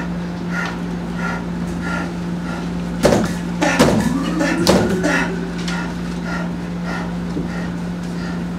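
Three or four sharp knocks close together around the middle, with a few sliding tones among them, over a steady hum and a soft regular ticking.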